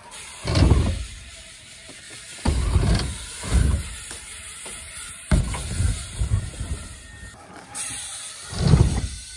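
BMX bikes riding the ramps: about five heavy rumbles of tyres rolling up the ramps and landing, each starting suddenly, a second or two apart.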